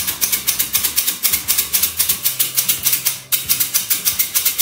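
Squeeze-handle metal flour sifter being worked by hand, a fast even rasping click of the lever and agitator wires scraping flour through the mesh, about seven strokes a second, with a short break about three seconds in.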